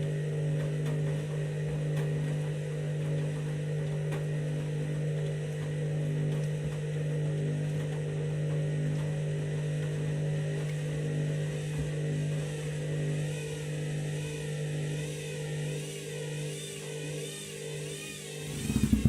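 Candy washing machine's drum motor running steadily with a low hum as it tries to spin an out-of-balance bedding load. From about two-thirds in a whine wavers up and down, and a loud knock comes near the end.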